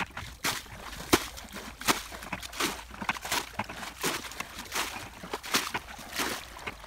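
Muddy water sloshing and splashing as it is bailed out with a plastic bucket, in repeated scoops and throws, one or two a second.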